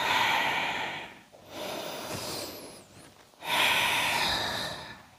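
A person's deep, paced yoga breathing into the microphone, three long breaths in a row: a loud one, a quieter one, then another loud one.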